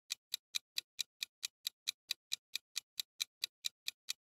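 Clock-ticking sound effect marking a quiz countdown timer: short, even ticks, about four and a half a second.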